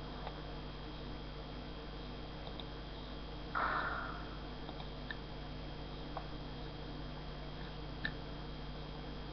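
Room tone picked up by a webcam microphone: a steady low hum and hiss. A short, soft burst of noise comes about three and a half seconds in, and a few faint clicks follow later.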